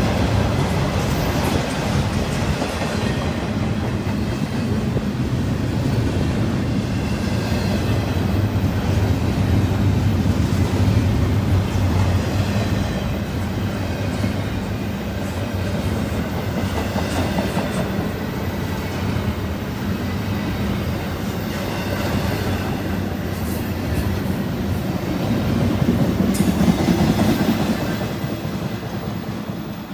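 Freight train rolling past at track side: a steady rumble with a low hum, easing off near the end.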